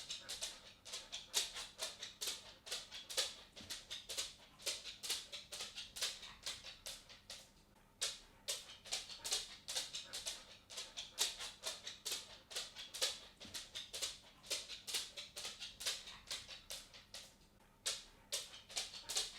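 A cat walking: a steady run of light, sharp footstep ticks, several a second, broken by two short pauses.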